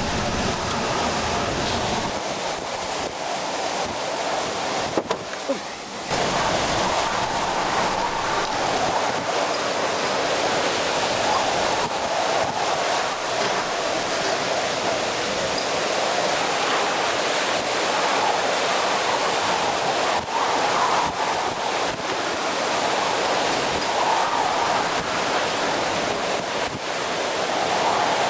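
Hurricane-force wind of a hurricane's eyewall blowing steadily, a dense rushing noise. A couple of brief sharp clicks about five seconds in.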